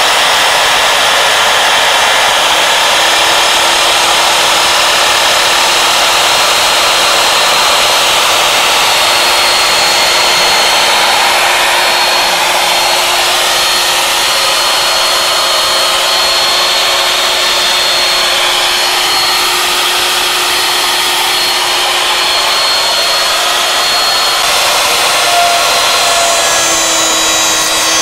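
Router spindle of a Warthog CNC lathe running at speed, its end mill cutting slots into a wooden turning: a loud, steady high-pitched hiss with a constant tone under it.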